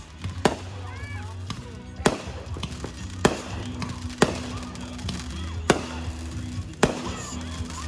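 Fireworks going off: six sharp bangs about a second or so apart, over music playing in the background.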